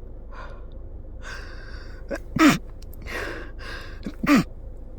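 A person with a cold sneezing twice, about two seconds apart, in a fit she can't stop. Each sneeze is a short, loud burst with a falling voice, preceded by sharp, gasping inhales.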